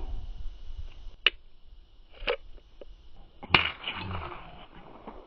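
Three sharp cracks from an Armscor M1600 .22LR semi-automatic rifle, fired about a second apart. The third shot is the loudest, with a brief echo after it.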